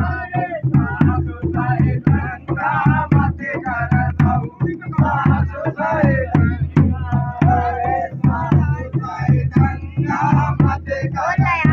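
Men singing a Holi folk song together, loud and full-throated, over a barrel-shaped hand drum beaten in quick, steady strokes.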